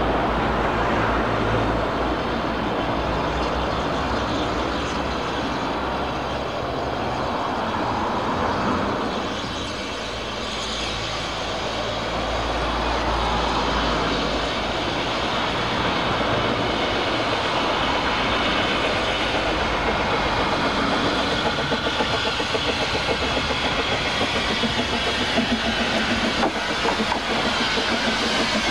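Narrow-gauge steam train, hauled by the locomotive Mountain Prince, approaching round a curve with a steady rumble. A regular clicking of wheels over rail joints builds in the last several seconds as the engine and carriages pass close by.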